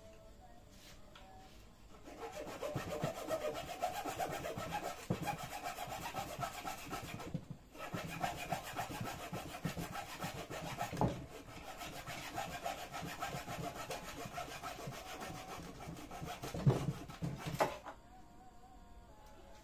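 Hand saw with a thin flexible blade cutting off a wooden dowel pin flush with a table-frame joint: fast back-and-forth strokes, with a short break partway through and a couple of louder knocks.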